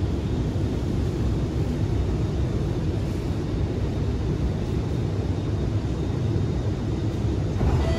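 Steady low rumble inside the passenger cabin of an Alstom Movia R151 MRT train.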